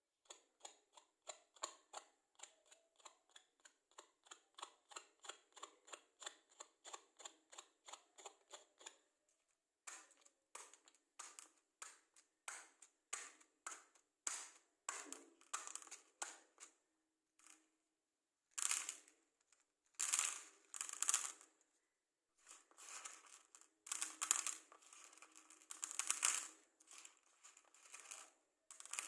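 Wooden matchsticks handled close to the microphone: a run of light, even clicks about three a second for the first nine seconds, then irregular clicks and, from about halfway through, louder scratchy rustles lasting up to a second each.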